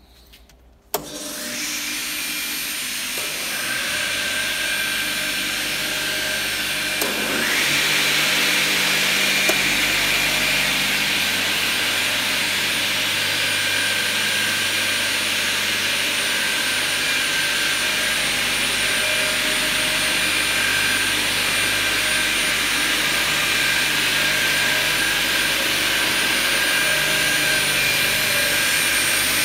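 Rudolf Kleinhenz multi-blade cross-cut saw line switched on about a second in, its electric motors and circular saw blades then running with a steady whine. The noise grows louder in steps over the next several seconds, with a rising spin-up about seven seconds in, before settling to a steady run.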